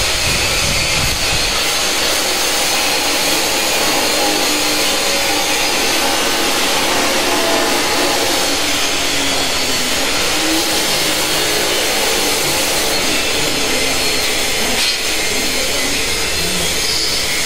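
A machine running steadily: a loud, even, hissing whir that does not change.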